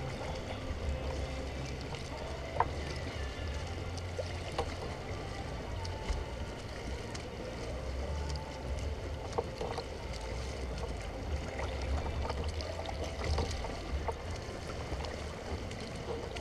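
Water lapping and splashing against a kayak's plastic hull as it moves through choppy water, over a low rumble, with a few sharp knocks.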